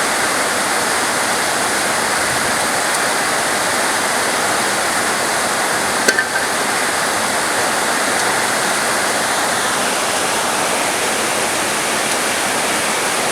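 Heavy rain shower pouring down steadily in a dense, even hiss, with one sharp click about halfway through.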